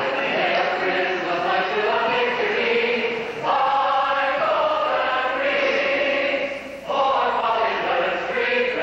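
Madrigal choir singing in long, sustained phrases, with brief breaks between phrases about three and a half and seven seconds in.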